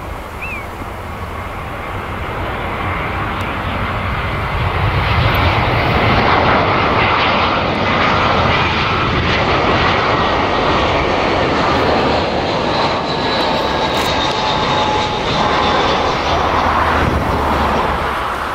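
Twin-engine Airbus A320-family jet airliner on final approach passing low overhead. Its engine noise builds to a peak about six seconds in and stays loud, with a thin whine that slides slightly lower in pitch as it goes by.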